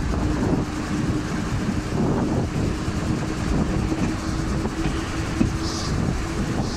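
Passenger train running along the track, heard from a carriage window: a steady rumble of the wheels on the rails with a steady low hum over it.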